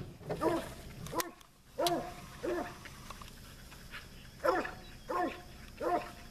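A hunting dog barks repeatedly, about eight short barks with a pause in the middle, while holding a wild hog at bay.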